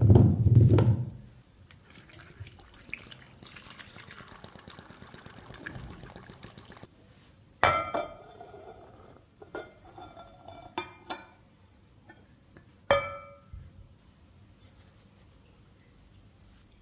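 Chunks of raw potato set down in a frying pan with dull thuds, then a few sharp clinks against a glass mixing bowl, each ringing briefly, about eight, eleven and thirteen seconds in, as flour is tipped into it.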